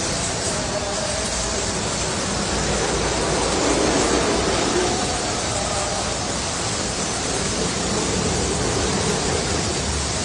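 Steady hiss of a water spray from a car-wash hose or wand, with a faint hum underneath, swelling slightly a few seconds in.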